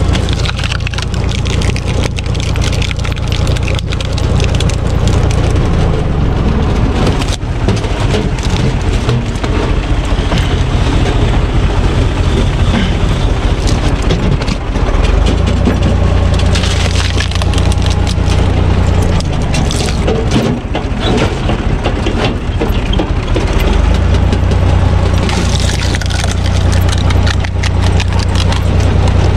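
Tractor-PTO-driven screw cone log splitter boring into logs, the wood cracking and splintering as they split apart, over the steady running of a UTB Universal 445 DT tractor's diesel engine.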